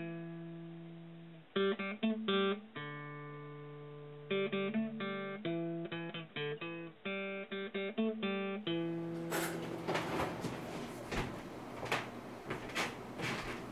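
Plucked acoustic guitar music playing arpeggiated notes. About nine seconds in the music stops, giving way to close handling noise with scattered soft clicks and knocks.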